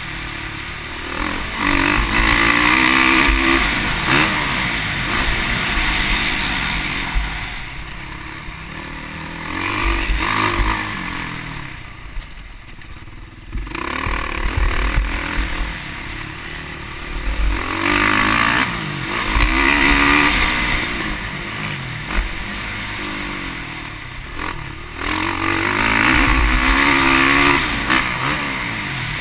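Motocross bike engine heard from an on-board camera, revving up hard and falling back over and over as the rider accelerates, shifts and closes the throttle. The engine nearly drops away about twelve seconds in, then comes back on.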